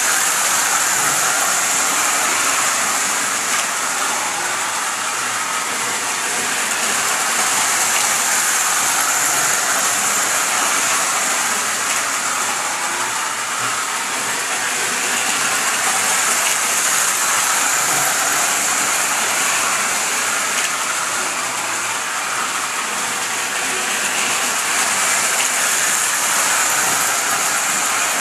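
Lionel electric model train running on its track: a steady noise of motor and wheels that swells and fades a few times as it passes.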